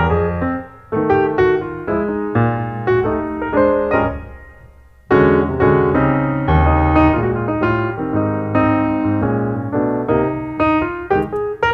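Background piano music: chords and melody notes struck in a steady rhythm, fading away about four seconds in and starting again loudly about a second later.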